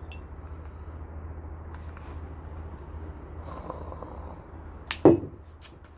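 Low steady background hum, then about five seconds in a single loud knock as a glass liquor bottle is set down on a wooden table.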